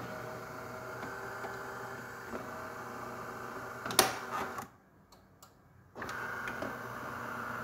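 DeLonghi Magnifica's vibratory water pump buzzing as it pushes hot water through the brew unit during a rinse cycle. It stops with a click a little after halfway, pauses for about a second and a half, then starts buzzing again.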